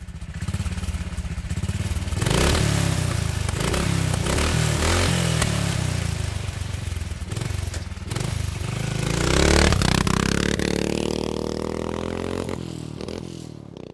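A motorcycle engine running and revving, its pitch rising and falling again and again, then climbing steadily for a few seconds as it accelerates, before fading out.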